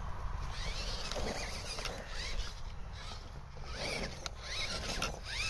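Electric motor and gears of an FTX Ravine RC rock crawler whining in short rising bursts, about four of them, as the throttle is blipped on a dirt trail, over a low wind rumble on the microphone.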